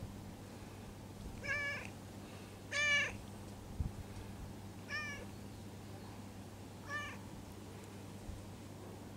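A cat giving four short, quiet meows about two seconds apart while its lower back is patted; the second meow is the loudest.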